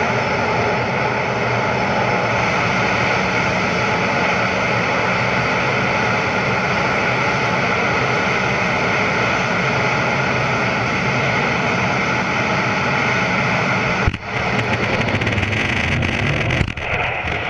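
F/A-18 Super Hornet jet engines running at full power, heard from inside the cockpit as a steady, dense rush. About fourteen seconds in there is a sharp knock and a brief drop in the sound as the carrier catapult fires the jet off the deck. The noise then carries on.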